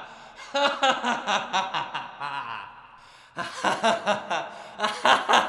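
A mock villain's laugh: a voice chanting quick, even 'ha ha ha' syllables in two runs, with a short break a little before halfway.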